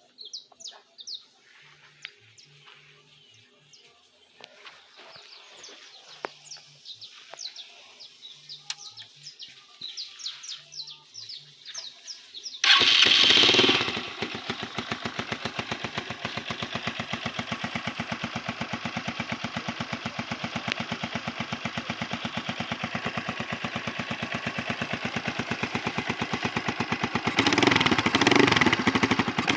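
Birds chirp faintly for about the first twelve seconds. Then a single-cylinder AKT RTX 150 motorcycle with an aftermarket full-system exhaust starts abruptly and settles into an idle with evenly spaced exhaust pulses. It revs up a couple of times near the end.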